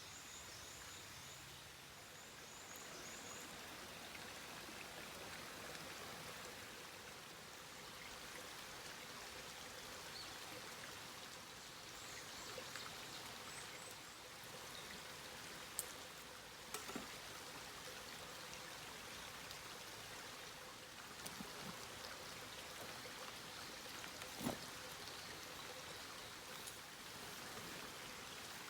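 Steady, faint rush of a stream's flowing water, with a few sharp clicks and a couple of faint high chirps over it.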